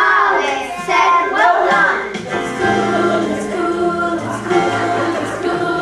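A choir with children's voices singing a song over backing music; the voices stand out for about the first two seconds, then held notes and a steady bass line carry on.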